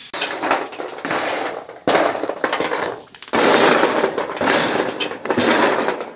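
Raw cashew nuts in their shells being stirred on a hot metal sheet over a barbecue fire: the shells rattle and scrape across the metal in three long loud stretches, with short breaks about two and three seconds in.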